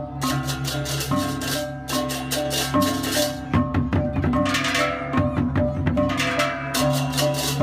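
Balinese gamelan music: held, ringing gong and metallophone tones under fast, dense clashing cymbal strokes and drumming.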